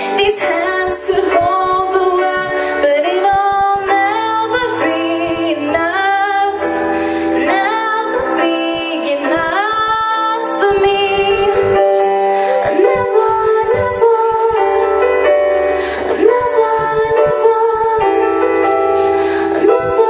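A woman singing a melody into a microphone, with live keyboard accompaniment holding sustained chords under her voice.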